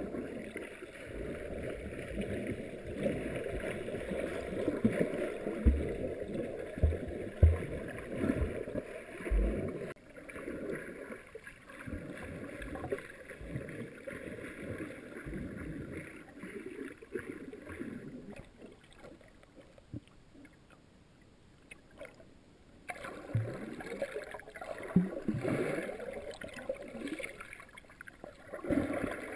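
Muffled underwater water noise picked up through a GoPro's sealed dive housing: irregular swishing and gurgling with a few low knocks from handling the housing a quarter of the way in. It goes quieter for a few seconds past the middle, then picks up again.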